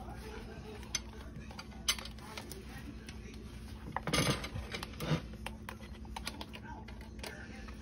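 Plastic wrap being peeled off a foil pie tin: faint crinkling and a few small clicks, loudest about four seconds in, over a faint steady hum.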